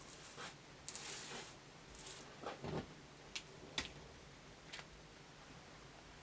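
A thin clear plastic wrapper and a paper card handled on a wooden table: a few short crinkles and rustles, then several light clicks and taps.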